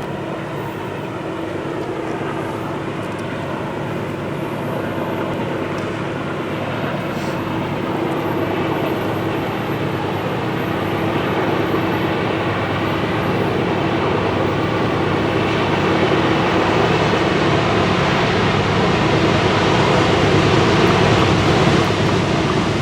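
Diesel engines of the approaching CN GE C40-8 locomotives running as a steady drone with a held hum, growing gradually louder as the train nears.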